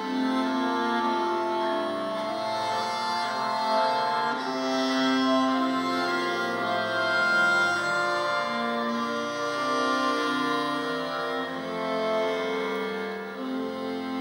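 Instrumental music with slow, long held notes.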